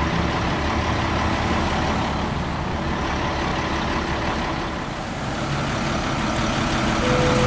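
Steady rumble of idling truck engines and road traffic, with a brief steady tone near the end.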